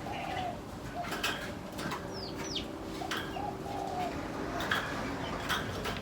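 Aviary birds calling together: a dove coos in short rounded phrases at the start and again about three seconds in, while small birds chirp and give quick high falling whistles, with scattered sharp clicks.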